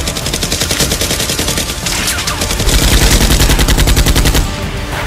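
Rapid automatic gunfire, many shots a second, heaviest and deepest from about halfway through until shortly before the end.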